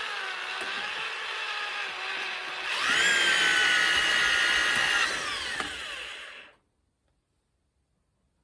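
Power-tool motor, drill-type, running a wire stripper as copper wire is fed through. The whine is steady, then about three seconds in it speeds up and gets louder. It holds for a couple of seconds, then winds down and stops about six and a half seconds in.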